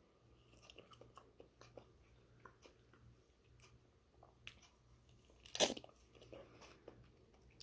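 Faint mouth sounds of biting cubes of ripe mango off the skin of a hedgehog-cut mango half and chewing them, with small scattered clicks and one louder bite about five and a half seconds in.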